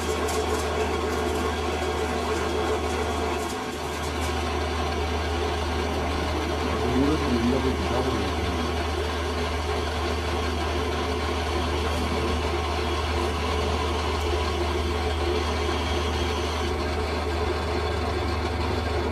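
Metal lathe running with a steady low motor hum, dipping briefly a few seconds in.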